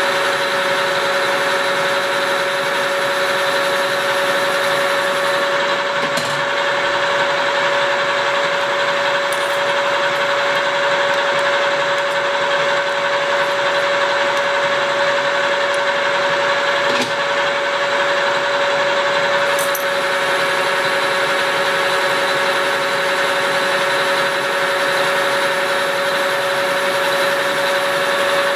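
Engine lathe running steadily under power, turning a steel wood-chipper drum shaft, with a constant hum and a hiss over it. A few faint ticks come through now and then.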